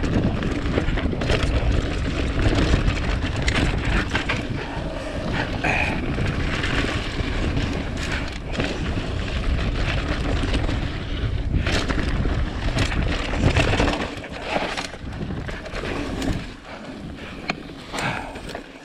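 Mountain bike riding down a dirt trail: wind buffeting the microphone, with the bike rattling and knocking over bumps. It quietens over the last few seconds.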